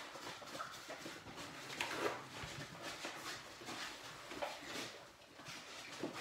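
A litter of yellow Labrador puppies eating the last of their food from bowls and moving about on a wooden floor: scattered small clicks and scrapes, coming unevenly.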